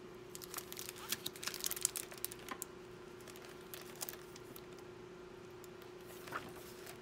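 Hardcover library book in a clear plastic jacket being opened and its pages turned: crinkling and clicking of the plastic cover and paper, busiest in the first couple of seconds and again near the end, over a faint steady hum.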